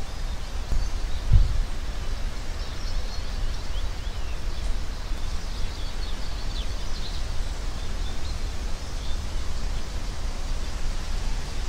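Outdoor ambience from a nest-cam microphone: a steady low rumble with faint, scattered small-bird chirps, and a single low thump about a second and a half in.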